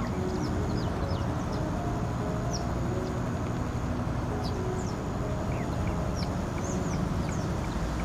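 Wetland birds calling together: many short, thin chirps and down-slurred whistles from small birds, mixed with short low calls, over a steady low rumble.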